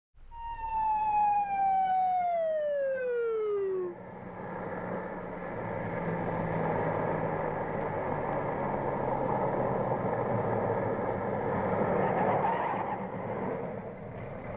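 An emergency vehicle siren winding down, its pitch falling steadily over about four seconds, then a steady drone.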